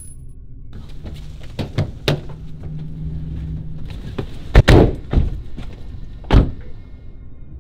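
Car doors being opened and shut: a series of sharp thunks, the loudest pair about halfway through, over a steady low rumble.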